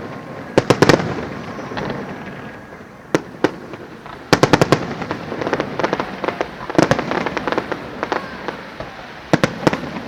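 Fireworks display: shells bursting in quick clusters of sharp bangs every second or two, with a rumbling crackle between the clusters.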